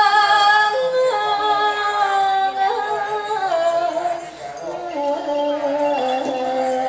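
Woman singing a slow Thai vocal line into a handheld microphone, holding long notes that step and slide downward.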